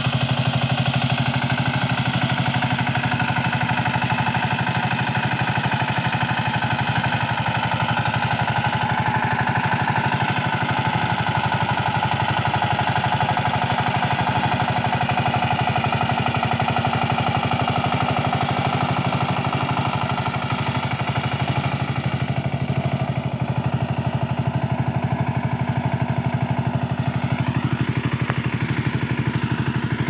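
Kamco Super DI 12 hp power tiller's diesel engine running steadily while its rotary tiller churns dry soil, with a fast, even diesel clatter.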